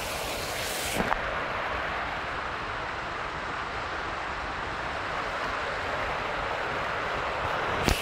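Water rushing steadily down a foaming cascade channel, an even rushing noise. There are two short knocks, one about a second in and one near the end.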